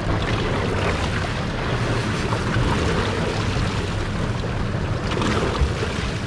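Yamaha 300 outboard motors running at low speed, with water washing around the stern and wind on the microphone, all steady.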